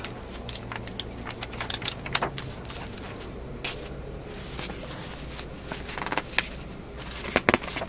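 Paper rustling as manuals and sheets of paperwork are leafed through and handled: a scattered run of crisp crinkles and page flicks, louder in a quick cluster near the end.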